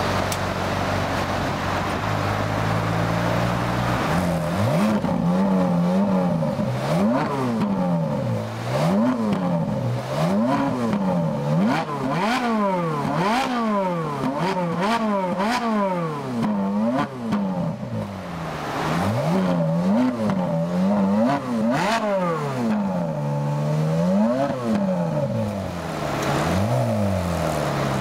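Ferrari 458 Italia's V8, fitted with a loud sports exhaust, idling and then revved repeatedly in the stationary car: about a dozen quick blips, each rising and falling in pitch over a second or two, before it settles back to idle near the end.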